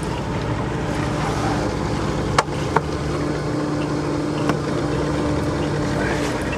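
Sailboat's inboard engine running at a steady speed, with two sharp knocks about two and a half seconds in and another past four seconds.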